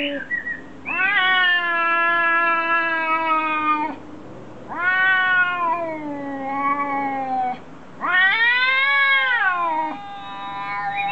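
Cat caterwauling during a face-off with another cat: a series of long, drawn-out yowls, each lasting a few seconds and rising then sliding down in pitch, with short pauses between. It is a threat call of an aggressive standoff.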